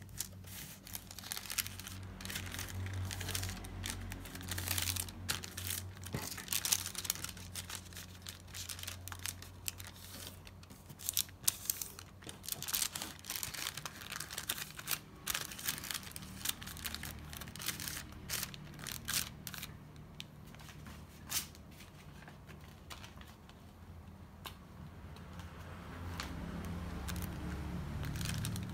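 Thin translucent wrapping paper crinkling and rustling with many irregular crackles as it is folded by hand around a small card. The crackling thins out in the last few seconds.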